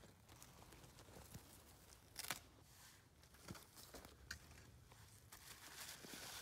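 Faint handling sounds: a few sharp knocks as a dead mule deer's dry antlers and skull are lifted and set down on twiggy ground, the loudest a little over two seconds in, then a plastic bag crinkling near the end.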